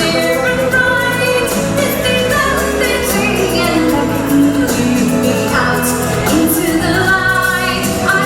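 Stage-show musical number: a song with singing over a full orchestral backing and a steady bass line.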